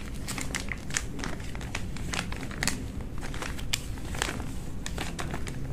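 Clear plastic parts bags crinkling and crackling as hands sort through them, with irregular short crackles.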